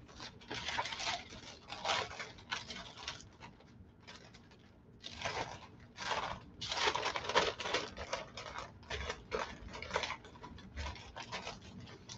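Parchment paper rustling and crinkling in irregular bursts as hands press and mash dough flat on it, with a quieter lull a few seconds in.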